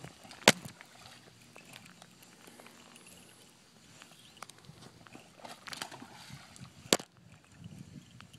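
Two sharp knocks about six and a half seconds apart, over light, irregular crackling and small clicks, with a short flurry of clicks shortly before the second knock.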